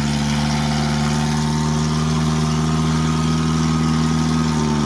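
UAZ off-roader's engine running at steady revs while working through swamp mud, easing off slightly near the end.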